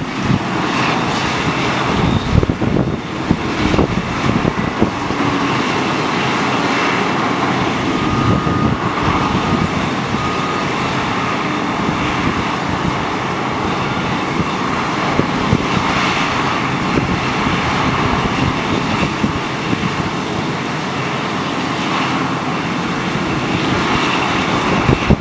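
Caterpillar 992G wheel loader's V8 diesel running hard under load, a steady loud rumble, as the machine lifts its bucket and loads a haul truck.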